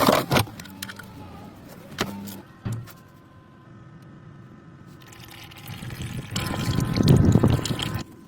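A few sharp clicks and knocks of tools on metal, then liquid pouring and splashing that builds up and stops abruptly near the end.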